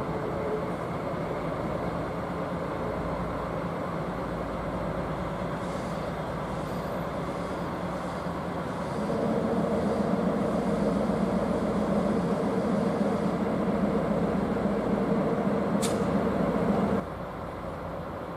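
DD51 diesel-hydraulic locomotive's engines running as it moves slowly while shunting. About nine seconds in, the engine note grows louder to a steady drone, which drops away suddenly near the end.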